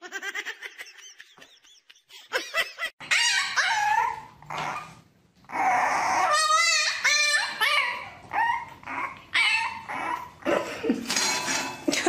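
French bulldog puppy whining and yelping: a string of high, wavering cries that starts about three seconds in, the longest and loudest about halfway through.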